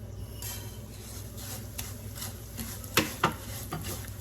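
Vermicelli being stirred in hot ghee in a pan, with a faint sizzle and light scraping. The utensil clinks sharply against the pan twice about three seconds in.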